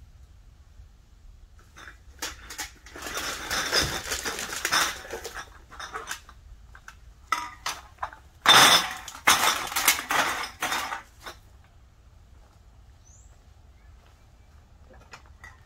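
Bags of empty bottles and cans clinking and rattling as they are handled, in two bouts a few seconds apart, the second louder.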